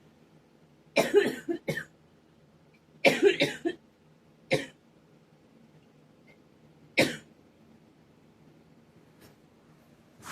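A person coughing in four bouts: a quick fit of several coughs about a second in, another about three seconds in, then single coughs at about four and a half and seven seconds. The coughing is put down by the person to a high pollen count.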